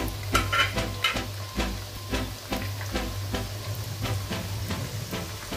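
Cornstarch-coated chicken pieces and whole garlic cloves frying in hot oil in a wok, sizzling with frequent crackles.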